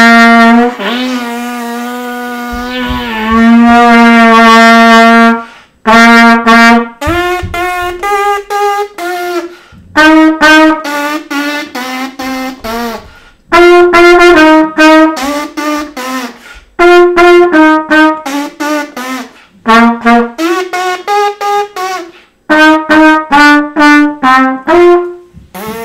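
Trumpet played solo: a long held low note that swells, softens and swells again, then a melody of short, separately tongued notes in phrases with brief breaths between, ending on a low sustained note. The lips buzz into the mouthpiece to make the tone.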